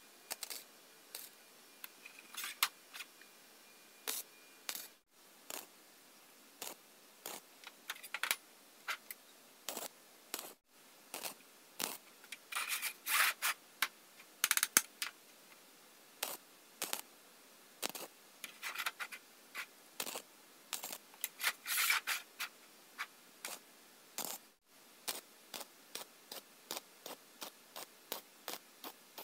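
Galvanized square hollow steel tubing being handled and set against a magnetic welding square: many short, light metallic taps, clicks and scrapes. Two longer rasping bursts come about halfway through and again about three-quarters of the way in.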